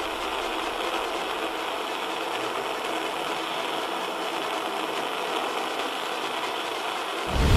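Kitchen gas-stove burner flame hissing steadily. A louder, deeper rumble starts right at the end.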